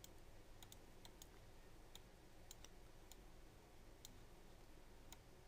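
Faint, scattered computer mouse clicks, about nine sharp ticks at irregular intervals, over near-silent room tone.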